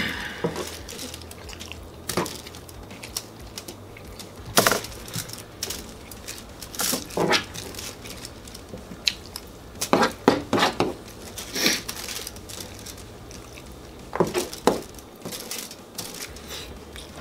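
Metal fork scraping and tapping against crinkly aluminium foil while scraps of food are picked up, in short irregular scrapes and clicks a second or more apart.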